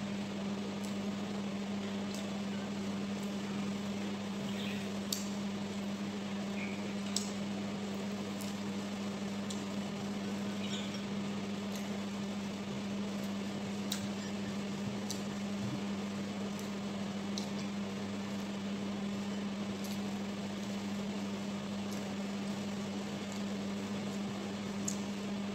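Steady low hum of a household appliance running, unchanging throughout, with a few faint clicks of fingers and food against a plate.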